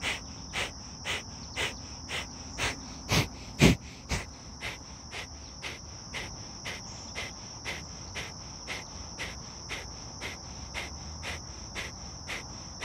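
Kapalbhati fire breath: a rapid run of short, forceful exhalations through the nose, about two a second, loudest around three to four seconds in and softer after. A steady high insect trill runs behind them.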